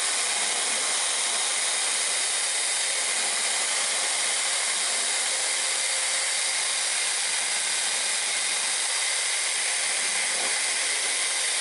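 Handheld grinder running steadily while grinding the rough edges off the end of a metal pipe to radius it, a steady hissing grind with a faint whine. It cuts off abruptly near the end.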